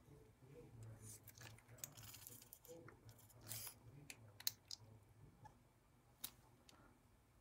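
Faint handling sounds of paper cut-outs and craft supplies on a tabletop: soft rustles and a few sharp clicks, the sharpest about four and a half and six seconds in.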